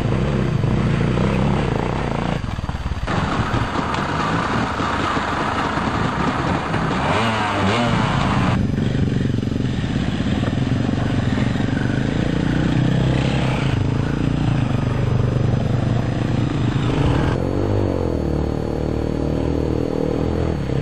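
Enduro dirt bike engines revving as the bikes ride through creek crossings, with water splashing under the wheels. The sound changes abruptly several times as one clip cuts to the next.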